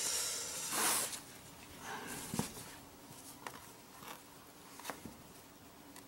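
Small handling noises of a plastic laptop case being worked with a guitar pick and fingers: a scraping rustle in the first second, then a few faint light clicks.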